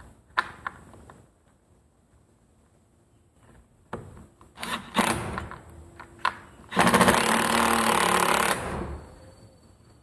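Cordless impact driver driving a screw into a door lock's latch faceplate: a few short pulls of the trigger from about four seconds in, then a loud run of rapid hammering for about two seconds near seven seconds in as the screw is snugged down. A few small handling clicks come before it.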